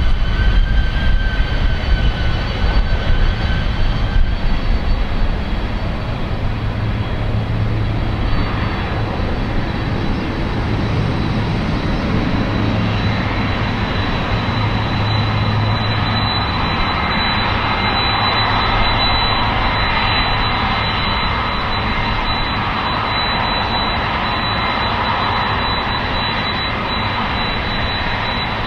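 Boeing 767-300's twin jet engines running at taxi power: a steady rumble with a thin high whine. The roar fills out in the middle range in the second half as the jet turns its engines away toward the listener.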